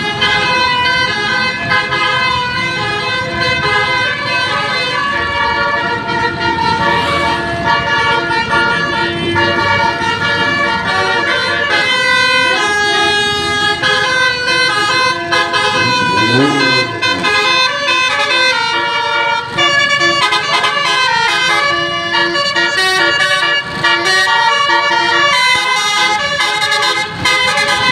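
Bus's basuri 'telolet' musical air horn playing a tune in a run of held, stepped notes, with a brief swooping tone about halfway through.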